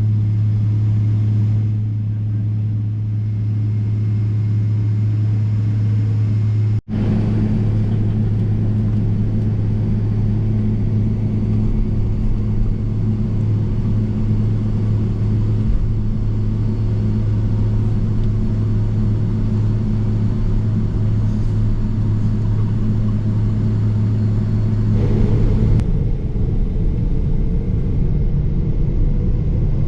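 Boeing 777-300ER cabin noise: a steady low hum from the aircraft's systems and engines. About 25 seconds in the hum gives way to a heavier rumble, and near the end a rising whine comes in as the GE90 engines spool up, typical of the start of the takeoff roll.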